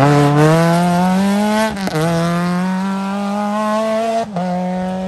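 Small hatchback rally car's engine accelerating hard, its pitch climbing through the gears, with quick upshifts about two seconds in and again about four seconds in.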